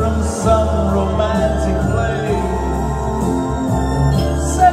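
A man singing live into a microphone over instrumental backing with a steady bass line.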